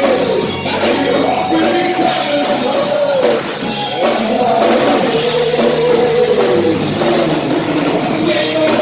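Live rock band playing, with drums under a lead line whose notes bend and glide up and down.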